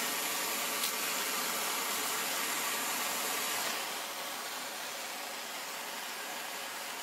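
Gas hand torch burning with a steady hiss while heating a steel clamp pad, a little quieter after about four seconds. One faint click about a second in.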